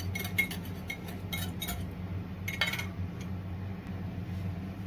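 Metal whisk clinking and scraping against a bowl as beaten eggs are poured into a frying pan: a quick run of clinks in the first second and a half, and another cluster about two and a half seconds in, over a steady low hum.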